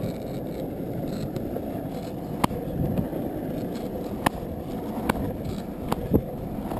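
Longboard wheels rolling fast down a paved hill: a steady low rumble with sharp clicks every second or so.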